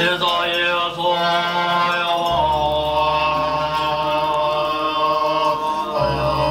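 Voices chanting a mantra in long held notes over music, with a deep low drone coming in about two seconds in and shifting in pitch near the end.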